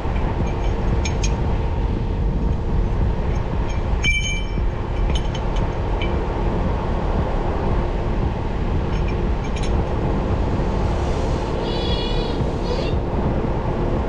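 Heavy machinery engine running steadily, with a few sharp metallic clicks and a brief high squeal near the end.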